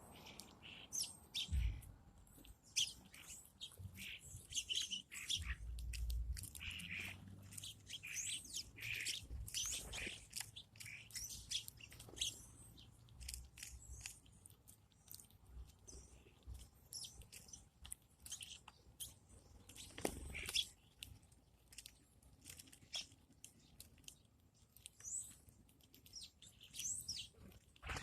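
Small birds chirping: many short, high chirps throughout, with scattered clicks and a few low thumps.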